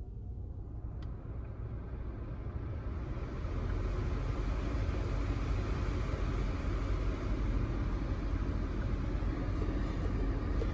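Rushing noise with a low rumble inside a car, building over the first three seconds and then holding steady.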